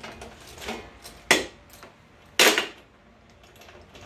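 Hard metal tool knocks and clinks while a spark plug is being taken out of a mower engine: a few light ones, then two loud sharp ones about a second and a half and two and a half seconds in.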